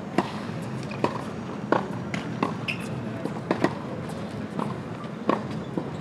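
Tennis balls struck by rackets and bouncing on a hard court: about ten sharp pops spread irregularly through a practice rally and feed.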